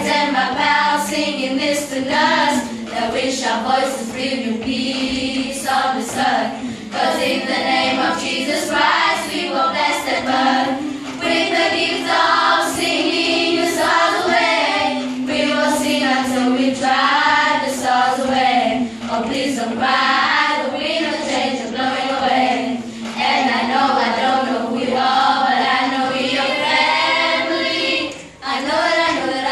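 A Grade 7 children's school choir singing a cappella in several parts. One low note is held steady under the melody for about the first ten seconds, and there is a brief break in the singing near the end.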